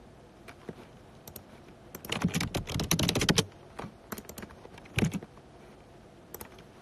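Keyboard typing: a few scattered key clicks, a quick run of clicks about two seconds in, then a single louder click and a few more near the end.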